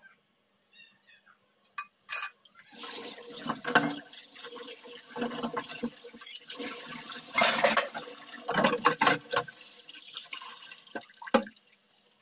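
Breaded green-banana kebabs deep-frying in hot oil: a bubbling sizzle that comes in about three seconds in and swells and fades in surges, after two sharp clicks.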